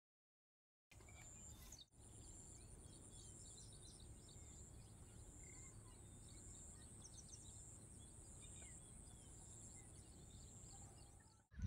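Near silence: faint outdoor ambience with small, faint bird chirps, cutting in after a moment of dead silence at the start.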